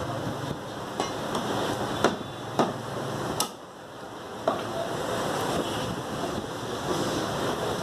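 Butcher's cleaver chopping mutton on a wooden chopping block: several sharp chops at irregular spacing, the last about four and a half seconds in, over a steady background hiss.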